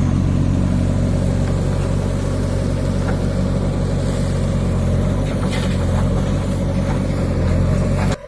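JCB 3DX backhoe loader's diesel engine running steadily, with a few faint knocks over it; the sound cuts off abruptly near the end.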